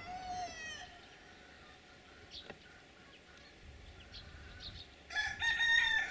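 Chickens calling: a few short, fainter calls, then a rooster crowing loudly about five seconds in.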